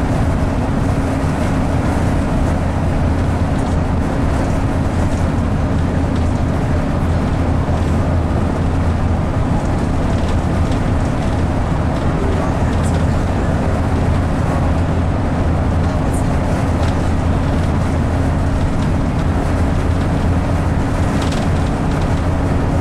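Bus engine running with a steady low drone and a constant hum, heard from inside the passenger cabin.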